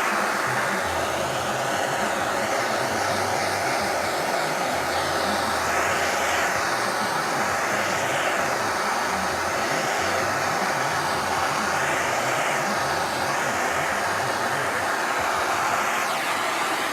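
Handheld gas torch flame hissing steadily as it is swept over the oxidized plastic fender, melting the top surface of the plastic to bring back its shine. The tone of the hiss wavers slowly every couple of seconds as the torch moves back and forth.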